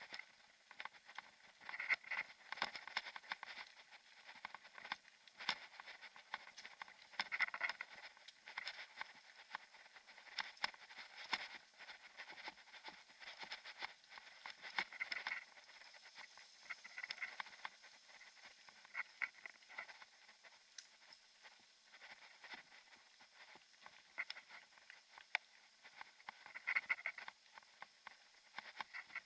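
Mountain bike and its mounted action camera rattling and clicking as they jolt along a rough gravel forest track. The sound is a steady, irregular run of small knocks and ticks over a light hiss, thin with almost no low end.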